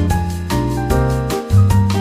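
Background music: upbeat piano-led track over a steady bass and beat.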